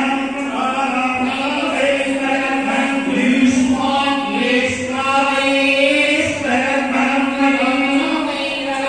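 A group of voices chanting a devotional recitation in unison, steady and continuous.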